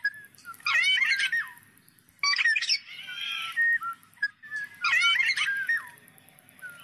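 Black-naped oriole singing: short phrases of fluty whistles with quick pitch glides, repeated about every two seconds, with a harsher, buzzier note about three seconds in.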